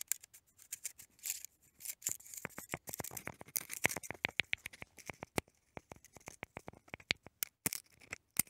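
A rapid, irregular run of small clicks and crackles, densest a couple of seconds in and thinning out towards the end.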